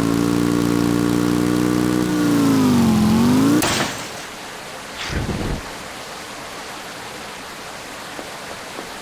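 Motorcycle engine sound effect running steadily, its pitch dipping and coming back up about two to three seconds in. It cuts off suddenly about three and a half seconds in with a short burst of noise, leaving a steady hiss with a brief low thump around five seconds.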